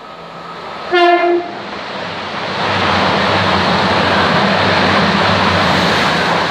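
A passing East Midlands Trains Class 222 Meridian diesel unit gives one short horn blast about a second in. It then runs through the station at speed with a loud rushing noise over a low engine drone, easing off near the end.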